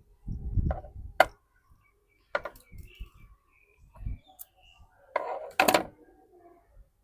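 Handling noise of small repair tools on a workbench during screw fitting: scattered sharp clicks and knocks with low bumps, ending in a louder cluster of clicks near the end.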